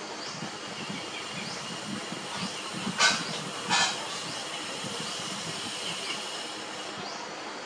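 Nursing puppies, about 17 days old, give two short high squeaks close together about three seconds in; the second slides down in pitch. Under them runs a steady hiss with faint high chirps.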